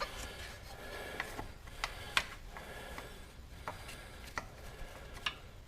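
A small brush scrubbing dirt off engine parts in a tight spot, faint scraping with a handful of short, sharp clicks spread through it.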